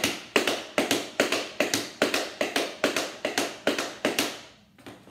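Tap shoes doing stationary flaps on a board: a steady run of paired taps, the two sounds of each flap close together, about two and a half flaps a second, alternating feet. The tapping stops a little after four seconds in.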